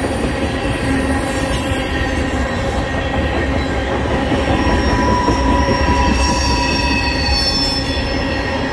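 Railroad tank cars of a freight train rolling past close by: a steady rumble of steel wheels on the rails, with thin high wheel squeals coming and going.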